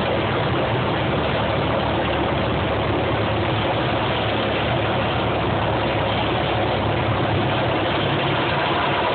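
Light aircraft's engine and propeller running steadily, heard loud from inside the cabin.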